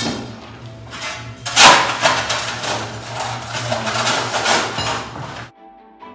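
Crowbar work on an old tiled floor: metal knocking and prying against red clay floor tiles, with broken tiles and rubble clattering. There is a sharp knock at the start, and the loudest crash comes about one and a half seconds in, followed by a run of knocks and clatter that cuts off about five and a half seconds in.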